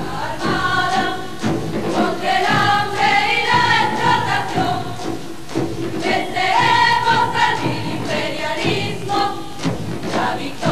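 A large group singing a revolutionary marching song in unison, with long held notes. The sung lines include "We will defeat imperialism!" and "Victory is of the people and their guns!"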